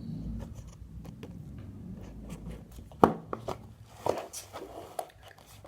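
AirPods cardboard packaging being opened and handled by hand: faint rubbing, a sharp tap about three seconds in, then a few softer knocks and a short rustle.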